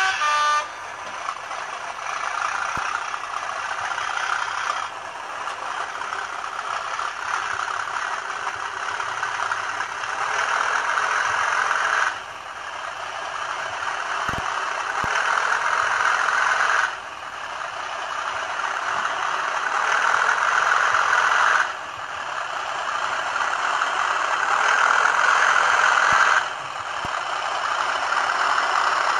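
Hornby TTS sound decoder in an N gauge class 37 model, playing the class 37's English Electric diesel engine sound through the model's small speaker as the locomotive runs. The engine sound swells slowly and drops back sharply about every five seconds.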